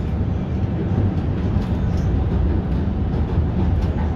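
A 1965 ASEA M28 tram running along the track, heard from inside the car: a steady low rumble with a few faint clicks.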